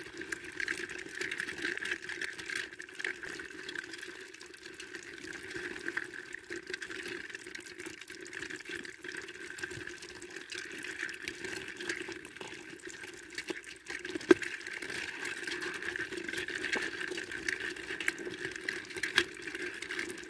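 A bucket full of live crawfish crawling over one another in a plastic bucket: a steady crackling rustle full of small clicks, with a sharper click about fourteen seconds in and a couple more near the end.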